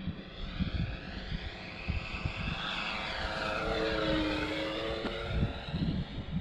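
Electric radio-controlled T-6A Texan II model with a three-blade propeller flying past: a propeller hum that grows louder toward the middle and then drops in pitch as the plane goes by.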